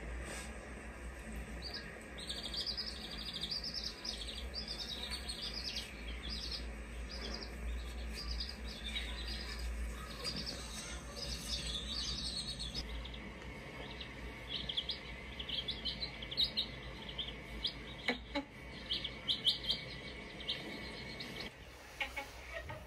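Baby chicks peeping: many short, high cheeps in quick succession, thinning to scattered sharper cheeps in the second half, over a low steady hum.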